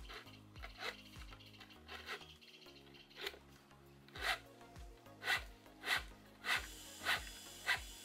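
Plastic rope rubbing and sliding against the rubber of motorbike tires as it is wound around them by hand. It makes a series of short strokes, faint at first, then louder and regular at about one every half-second in the second half.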